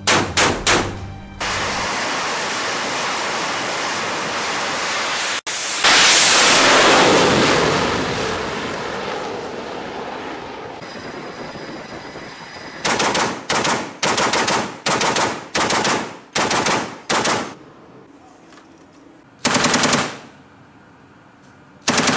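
A few quick shots from a ship's deck-mounted autocannon. Then comes a steady jet-engine roar that cuts off, and a louder one that swells and slowly fades as a jet launches from the carrier's flight deck. Then come a string of short bursts from a belt-fed machine gun, with two more bursts near the end.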